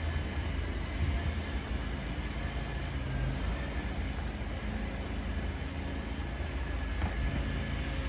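A vehicle engine running with a steady low hum over constant city street noise.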